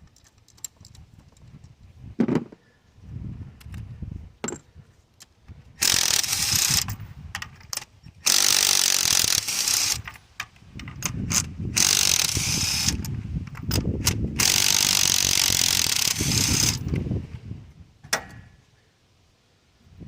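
Ratchet wrench with an extension and a 5/8-inch spark plug socket clicking in four runs of one to three seconds each, with a few single clicks before them, as spark plugs are backed out of the engine.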